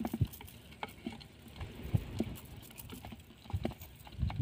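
Irregular light taps, pats and rustles as small fish are worked free of a nylon cast net by hand, the live fish flapping against the net and the dry ground and the net's chain weights clinking now and then.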